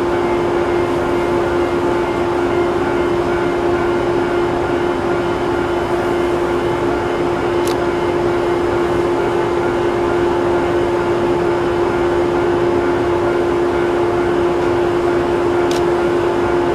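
A stationary electric train humming steadily at the platform: one unchanging tone with overtones over a constant whir of its onboard equipment. Two faint ticks come about halfway through and near the end.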